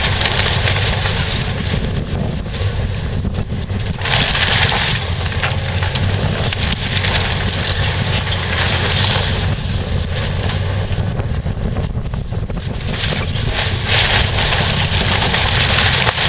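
Komatsu PC360LC hydraulic excavator's diesel engine running steadily while its bucket and thumb tear down a wood-frame house. Timber and debris crunch and crash in repeated bursts over the engine, loudest about four seconds in and again near the end.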